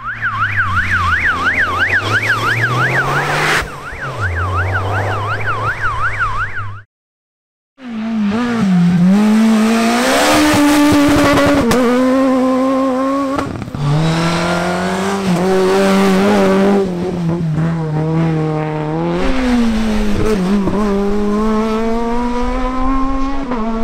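A fast up-and-down siren over a low rising engine note for the first few seconds, cut off into a second of silence. Then Renault Clio rally cars at full effort on a tarmac stage, their engines revving hard, the pitch climbing, dropping and climbing again with gear changes and lifts.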